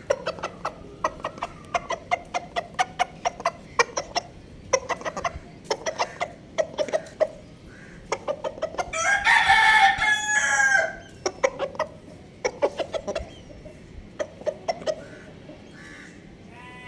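Chickens clucking in quick, short notes throughout, and a rooster crowing once about nine seconds in, a call of about two seconds that is the loudest sound.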